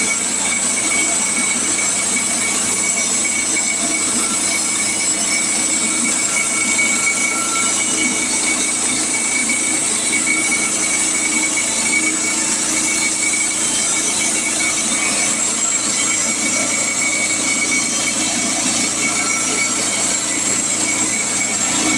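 Woodland Mills portable band sawmill running through a pine log, the engine and band blade giving a steady, even whine with a constant high squeal.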